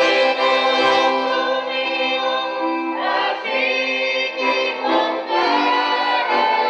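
Traditional folk group singing in chorus, men's and women's voices together, with an accordion playing along.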